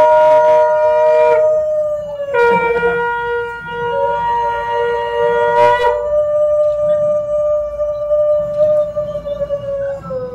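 Conch shells (shankha) blown in long held notes, two at once at slightly different pitches, with short breaks for breath. One carries on alone for the last several seconds, and its pitch sags as it fades near the end.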